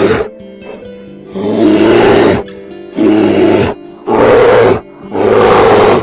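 A large animal giving a series of loud, harsh roars: the tail of one right at the start, then four more about a second apart, each lasting just under a second. Background music plays underneath.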